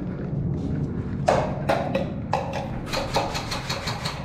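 Airsoft gunfire: a string of sharp, irregular cracks, roughly three a second, starting about a second in.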